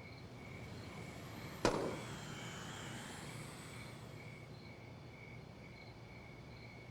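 Steady background ambience with a faint, evenly pulsing high chirp, and one sharp click about one and a half seconds in.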